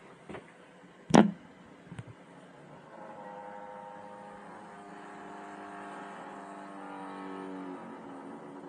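A single sharp thump about a second in, then a steady, sustained drone of several held tones that fades out near the end.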